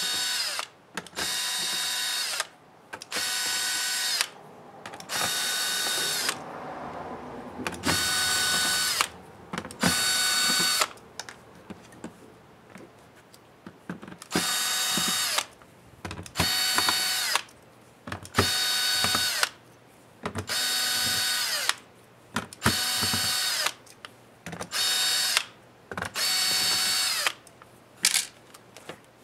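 Cordless drill/driver running in more than a dozen short bursts of about a second each, backing out small laptop case screws one after another. Each burst is a steady motor whine that drops in pitch as it stops, with a pause of a few seconds around the middle.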